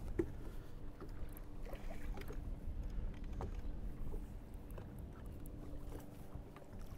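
Water lapping and splashing against the side of a bass boat, with low wind rumble and scattered small clicks. A faint hum comes and goes underneath.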